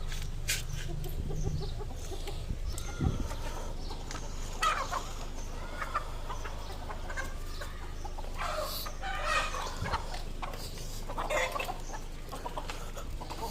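Domestic hens clucking in short, scattered calls, with a few busier stretches of calling, over a steady low hum.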